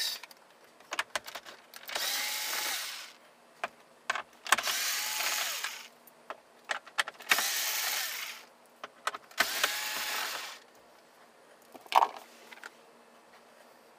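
Cordless power screwdriver backing out four screws that hold a car radio in the dash: four runs of the motor, each about a second long with a faint whine, with small clicks between them and a sharp knock near the end.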